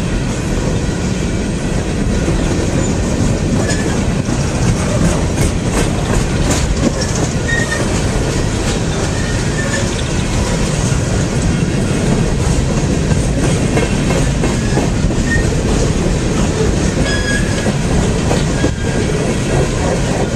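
Freight train of coal gondola cars rolling past close by: a steady rumble of steel wheels on rail, with irregular clacks.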